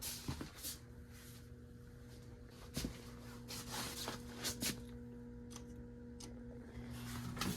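A steady low electrical hum, with scattered light clicks and knocks. The higher part of the hum drops out a little after six seconds in.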